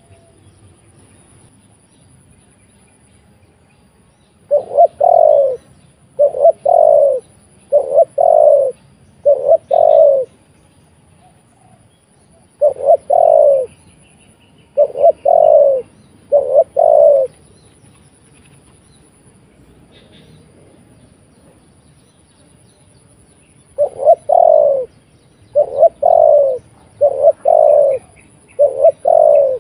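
Spotted dove cooing loudly in three bouts of repeated calls, four, then three, then five, with pauses of a few seconds between bouts. Each call is a quick double note run into a longer coo.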